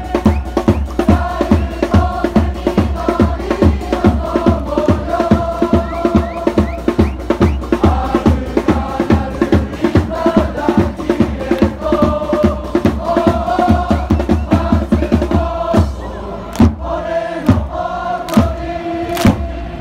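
Football supporters' section singing a chant in unison over a fast, steady bass drum beat. Near the end the drumming thins to single strikes about a second apart while the singing goes on.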